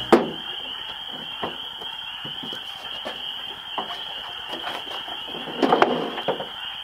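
Hand ratchet on 10 mm bolts removing the stock spoiler from a Honda S2000 trunk lid: scattered metallic clicks, with a louder cluster of clicks and clanks a little under six seconds in. A steady high-pitched chorus runs behind it.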